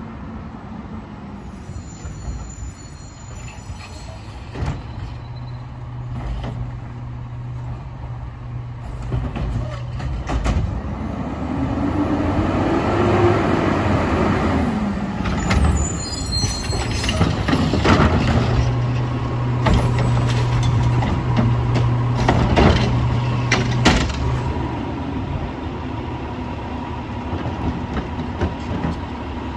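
Autocar WXLL garbage truck with a McNeilus front-loader body: diesel engine running, revving up and back down about a dozen seconds in, with several sharp knocks and bangs.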